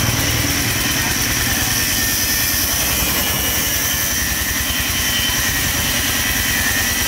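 An electric power tool's motor running at speed in a metal workshop: a steady high whine over a low hum, with no let-up.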